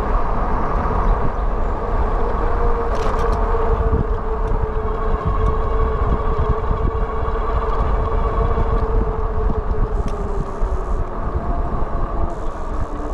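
Wallke H9 AWD e-bike's electric hub motors whining at a steady pitch while riding, sagging a little and fading out about ten seconds in. Heavy low wind rumble on the microphone runs underneath.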